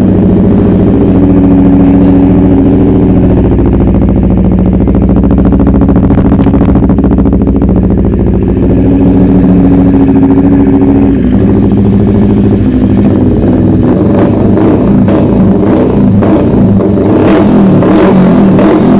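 CFMoto NK400's parallel-twin engine running through a newly fitted Villain R11 aftermarket exhaust. It runs steadily at first, then in the second half the throttle is blipped and the note turns uneven.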